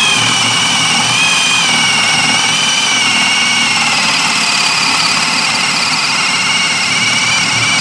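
Ryobi P251 18-volt brushless hammer drill running flat out under load, boring a hole into a wooden beam. A loud, steady high motor whine that drifts slightly lower in pitch as the bit sinks deeper.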